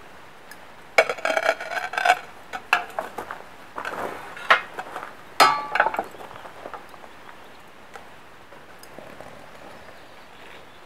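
Metal foundry crucible and its hooked lifting bar clanking and clinking as the crucible is lowered into its steel holder. A run of sharp metallic knocks with short rings fills the first six seconds, with the loudest clank about five and a half seconds in.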